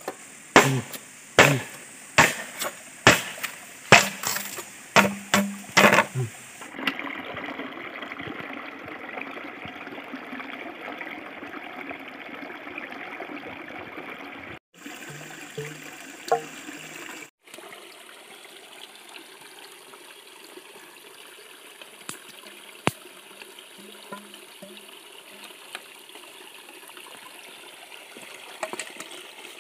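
Machete chopping a green bamboo stalk, about a dozen sharp strikes at roughly two a second, then a steady burble of a running forest stream.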